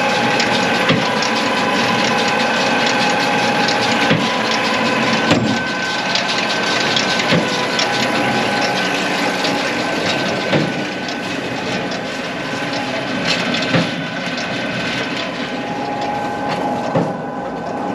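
Tractor and big square baler running while baling, a steady mechanical clatter with a few held tones and irregular short knocks.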